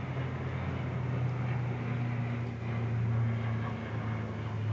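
Airplane flying past, heard as a steady low drone over a soft hiss.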